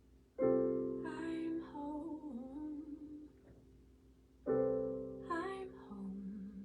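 Piano-style keyboard chords struck twice, about four seconds apart, each left to ring and fade, with a woman singing a slow melody over them.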